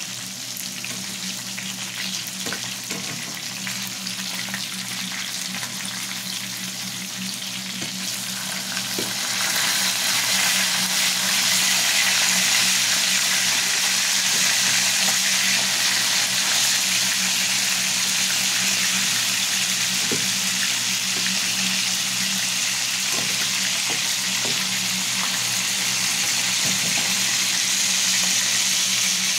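Whole fish sizzling as they shallow-fry in hot oil in a pan, with a few clicks and scrapes of a metal slotted spatula. The sizzle grows louder about nine seconds in.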